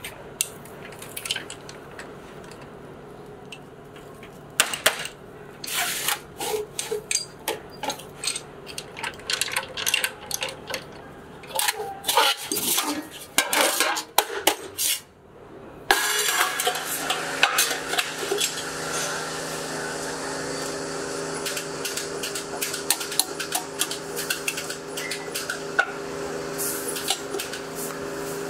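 Thin steel sheet clanking and rattling as it is rolled into a muffler shell on a slip roll, in sharp irregular clanks over a low steady hum. About halfway in it gives way to a steadier workshop machinery hum with several tones, with light metal taps and clinks over it.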